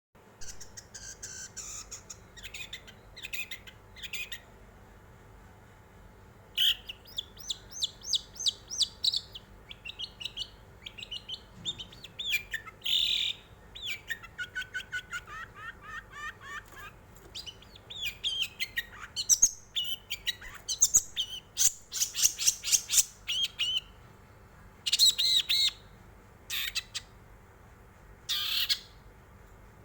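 Long-tailed shrike (cendet) singing: bursts of rapid, scratchy chattering trills and varied warbled phrases, separated by short pauses.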